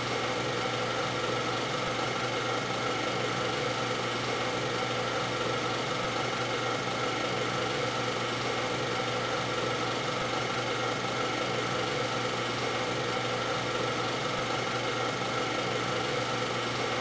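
Film projector running steadily: an even mechanical hum and whirr that holds the same speed and level throughout.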